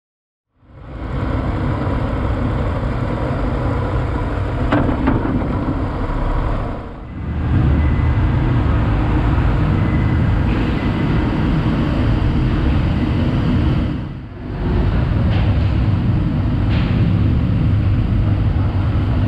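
2016 Yamaha XSR900's three-cylinder engine running at low speed under on-board camera wind and road noise, a steady low rumble that dips briefly twice.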